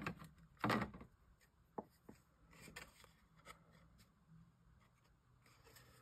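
Card and paper being handled and pressed down on a craft table: a few short taps and rubs, two louder knocks at the start, then quieter.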